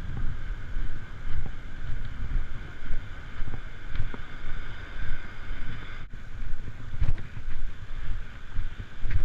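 Wind buffeting the action-camera microphone: a low, gusty rumble that rises and falls without letting up.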